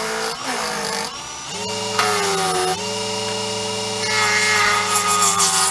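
Small benchtop wood lathe running, with a turning tool cutting a spinning wooden handle blank. The motor hum drops in pitch a couple of times as the cut bites, and the hissing scrape of the cut grows louder near the end.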